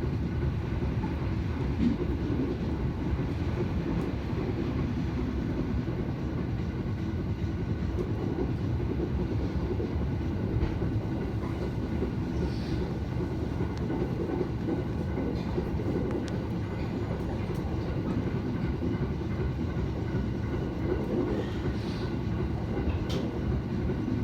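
Train carriage running at low speed, heard from inside: a steady low rumble of wheels on rail with a few faint clicks. The slow running is a 25 km/h speed restriction imposed for strong wind.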